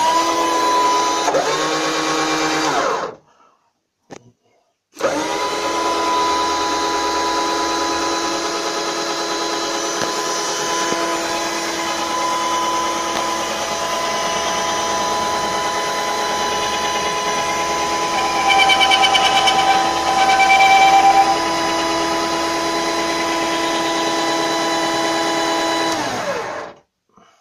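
A 12-volt drill motor turning a threaded rod to lower a coop door, running with a steady whine: a short run of about three seconds, a pause, then a long run of about twenty seconds that winds down and stops near the end. Partway through the long run a squeak joins it, from door rollers set too tight against the door.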